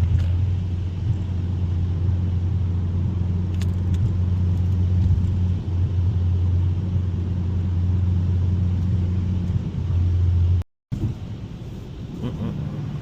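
Inside the cabin of a 2021 Mazda 3 Turbo, its turbocharged 2.5-litre four-cylinder and road noise make a steady low drone while driving. The sound cuts out for a moment near the end and comes back quieter.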